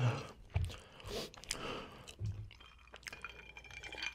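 Person drinking cola from a glass mug: wet sipping and swallowing sounds, with a few soft low thumps.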